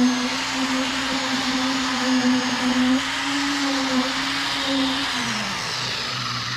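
Electric concrete vibrator running steadily in wet concrete, then switched off about five seconds in, its motor hum falling in pitch as it winds down.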